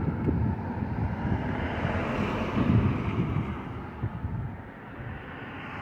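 Wind buffeting the microphone: an irregular low rumble that eases somewhat near the end.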